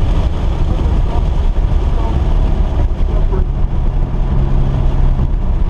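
Car engine running under a heavy, continuous rumble of road and wind noise. A steady engine note comes through about three seconds in.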